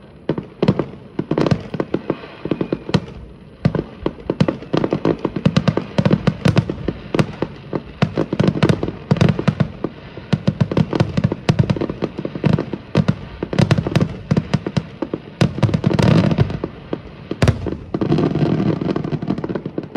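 Fireworks display: a rapid, dense barrage of bangs and bursts, one close after another, heaviest about sixteen seconds in and again near the end.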